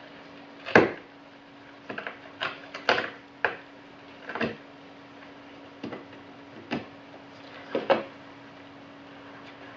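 A cardboard box knocked and scraped at irregular intervals by a groggy pet clambering on its torn top, after anaesthesia, with a steady low hum underneath.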